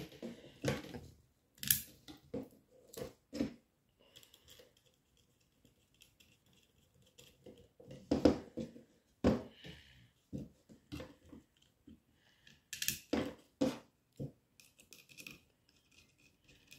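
Irregular small clicks and taps of brass spacers and screws being handled and screwed by hand onto a clear plastic robot chassis, with a quieter stretch in the middle.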